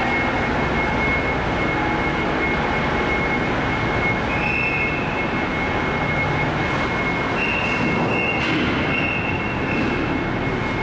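Steady mechanical din on a car ferry's vehicle deck: ship's machinery and a tractor-trailer's diesel engine as the truck drives off. A thin high whine runs through it, and two brief higher tones sound, about four seconds in and again about seven and a half seconds in.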